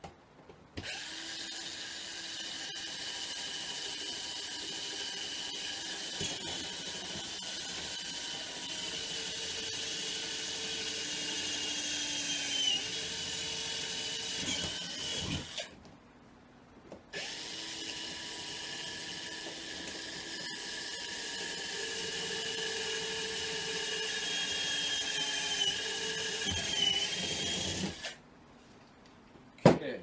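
Cordless drill running in two long runs, about fifteen and eleven seconds, with a short pause between. It is drilling through the latch's holes into the aluminium edge and wooden wall of a road case for the latch rivets. Its whine wavers in pitch near the end of each run.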